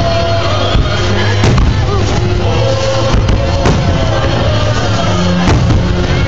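Loud music with a steady beat, over which aerial fireworks shells burst with a handful of sharp bangs spread a second or two apart.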